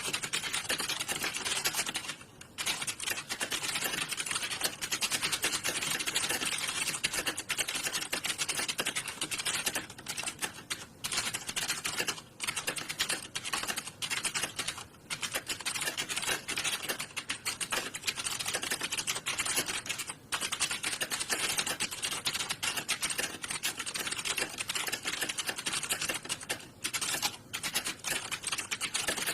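Fast, continuous typing on a computer keyboard, a dense stream of key clicks with a few brief pauses.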